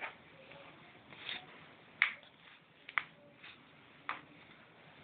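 A few short, sharp clicks and taps at irregular spacing over faint room noise, the loudest about two and three seconds in.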